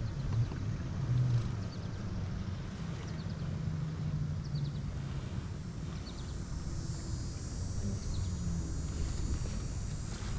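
Wind buffeting the microphone over a kayak on the water, a steady low rumble, with a few faint small ticks.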